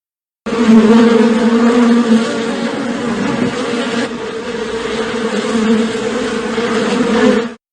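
Insects buzzing, a steady loud hum like a bee swarm, starting about half a second in and cutting off just before the end.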